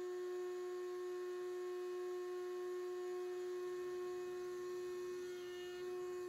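Router in a router table running steadily with no cut being made, a constant high-pitched hum.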